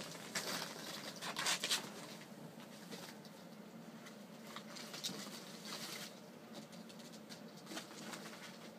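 Ferrets scampering and rummaging among their toys and plastic play balls: a patter of small scrabbling clicks and rustles, busiest about a second and a half in.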